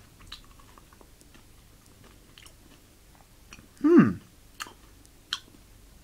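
A person chewing and crunching a candy-shelled dark chocolate M&M, with a few sharp crunchy clicks. About four seconds in comes a short vocal hum that falls steeply in pitch, the loudest sound.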